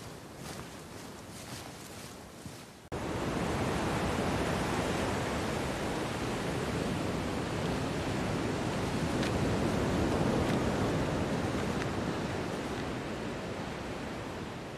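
Steady sea surf and wind on a beach, cutting in abruptly about three seconds in. Before it, faint rustling of footsteps in fallen leaves.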